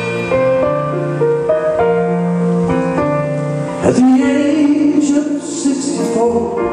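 Live band music, with a male vocalist coming in singing about four seconds in.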